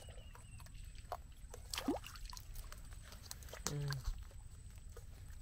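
Scattered clicks and light wet sloshing as a mud crab is gripped with metal tongs and lifted from the mud, over a steady low wind rumble on the microphone, with a brief voiced exclamation about two-thirds of the way in.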